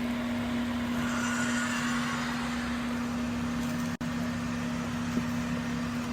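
A small electric fan or motor running with a steady hum over a constant whirring hiss. The sound drops out for an instant about four seconds in, then carries on unchanged.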